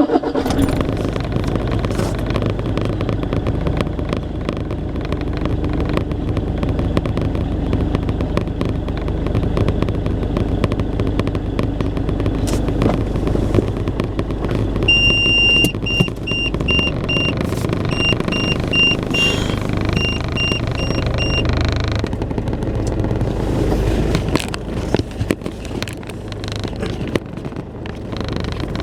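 An engine running steadily, with the low, continuous noise of a motor vehicle. About halfway through, short electronic beeps sound in quick groups for several seconds.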